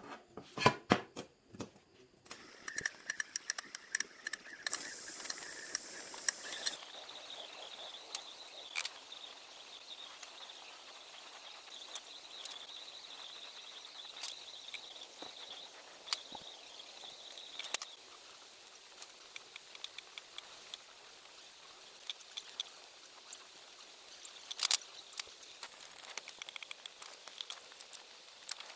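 LPG gas torch flame burning with a steady hiss and scattered crackles and clicks, louder for about two seconds around five seconds in. A few sharp knocks come at the start.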